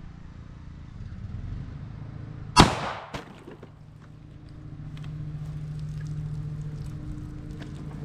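A single 9mm shot from a Canik Rival pistol firing a hollow-point round into water bottles, about two and a half seconds in, with a fainter knock half a second after it. A steady low hum runs underneath and grows louder from about five seconds in.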